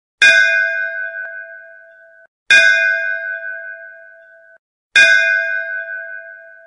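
A temple bell struck three times, about two and a half seconds apart, each strike ringing out and fading. The first two rings cut off abruptly after about two seconds.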